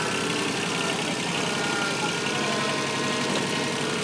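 Backhoe engine running steadily at a low, even speed.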